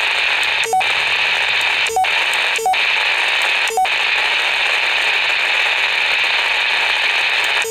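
Baofeng BF-F9 V2+ handheld transceiver's speaker hissing with steady loud static, the squelch left open. Four short beeps in the first four seconds, each with a brief break in the hiss, as keypad buttons are pressed.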